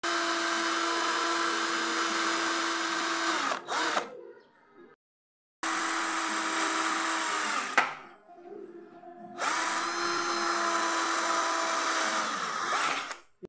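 Cordless drill boring holes through a door hinge into an aluminium door frame: three runs of a few seconds each, a steady motor whine that sags in pitch as each run ends.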